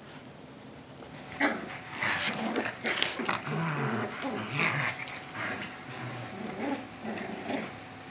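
Cavalier King Charles Spaniels, an adult and a young puppy, vocalizing in rough play over a plush toy: a run of growls and short yips that starts about a second and a half in.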